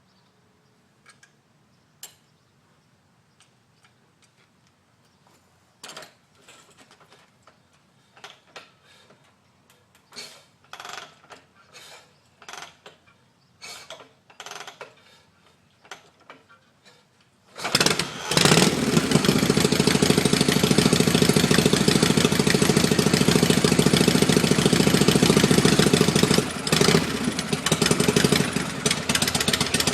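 Hard-starting, magneto-fired Harley-Davidson Shovelhead V-twin being kick-started cold: a run of separate kicks turning it over without it running, then about eighteen seconds in it catches and runs loud and steady, stumbling briefly near the end.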